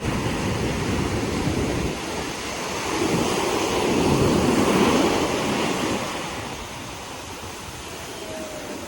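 Sea waves breaking on a beach: a wave swells about three seconds in, then its wash fades away.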